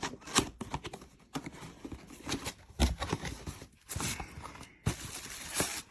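Cardboard box and its packing being opened and handled: an irregular string of rustles, scrapes and clicks, with a heavier knock about three seconds in.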